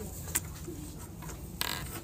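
Handling of a Logitech M221 silent wireless mouse: a sharp click about a third of a second in and a short plastic scrape near the end, over a low steady room hum.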